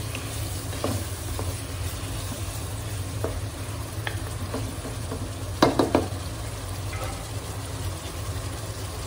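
Mutton, tomato and masala sizzling in a pot as a wooden spatula stirs through it, with light scraping clicks. There is a quick run of three or four loud knocks a little past halfway through.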